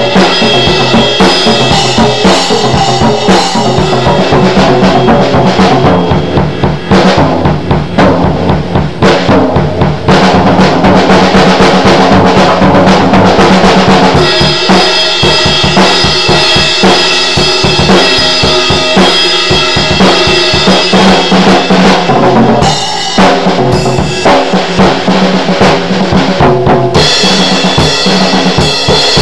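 Mapex drum kit played freestyle: fast, continuous strokes on bass drum, snare and toms under a steady wash of cymbals, loud and close. The cymbals grow denser about halfway through, and there is a brief break near the end.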